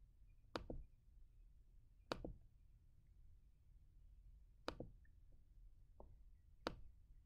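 Near silence broken by about five sharp computer-mouse clicks a second or more apart, a few of them doubled, as the pages of an on-screen book are clicked forward.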